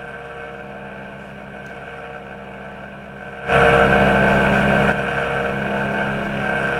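Laptop cooling fan (a GPU fan) running with a steady hum, then a little past halfway suddenly getting much louder with a rushing whir. This is the strange noise that the owner puts down to the fan, the hard drive having been ruled out.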